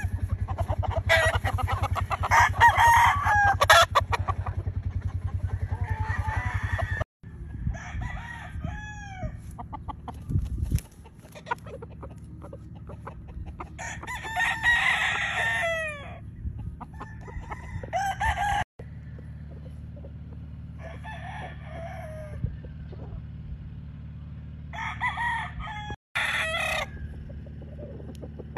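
Roosters crowing repeatedly, several crows one after another with some overlapping, over a steady low hum.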